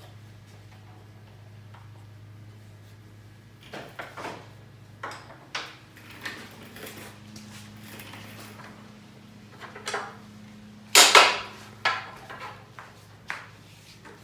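Wooden workpieces and tools being handled on a workbench: scattered knocks and clatters, the loudest a cluster about eleven seconds in, over a low steady hum.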